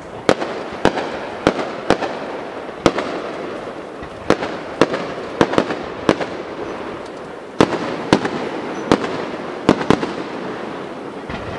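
Aerial firework shells bursting one after another, about fifteen sharp booms at uneven intervals, each followed by a lingering echo.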